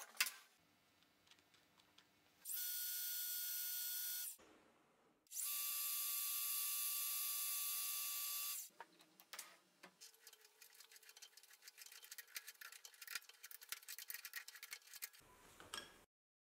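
A metal lathe running twice, in two steady stretches with a gear whine, stopping briefly in between. Then a twist drill in the tailstock bores into a spinning brass workpiece, giving a dense scratchy crackle of cutting over a fainter steady hum.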